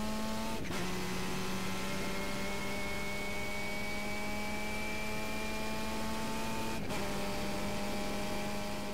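Formula Mazda open-wheel race car's Mazda rotary engine heard from the cockpit, pulling hard with its pitch slowly climbing. A short break in the note about half a second in and again near seven seconds, each followed by a lower pitch, as gears change.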